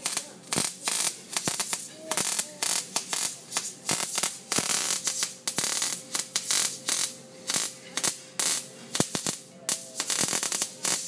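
Arc welder in use, the arc crackling and spitting irregularly and without a break. The wire-feed (MIG) welder's wire is trimmed to the right stick-out before the weld.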